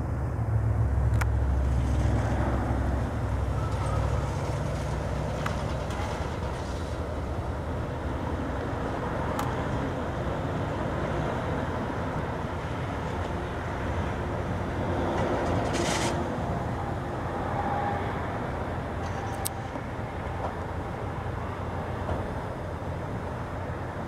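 Steady low outdoor rumble, heaviest for the first five seconds or so, with a few faint clicks.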